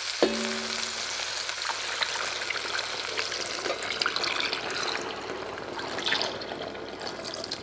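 Marinade pouring from a glass measuring jug into a hot enamelled cast-iron pot of browned beef and onions, the liquid splashing and sizzling steadily on the hot oil. A short clink at the start.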